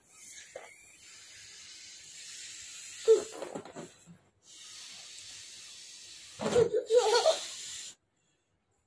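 A rubber balloon being blown up by mouth: long hissing breaths pushed into the balloon, in two stretches with a short break between them. Brief bursts of voice come about three seconds in and again around six and a half to seven and a half seconds.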